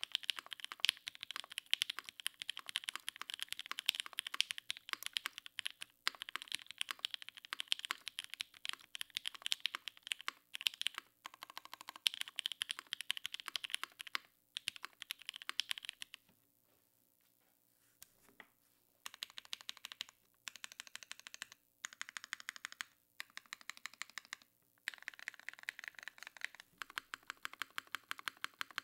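Typing on a Keycult No.2/65 mechanical keyboard with Opblack switches on 63.5 g springs, an aluminium half plate in a gasket mount, and GMK keycaps. Fast, continuous keystrokes stop for about three seconds just past the middle, then resume in short bursts.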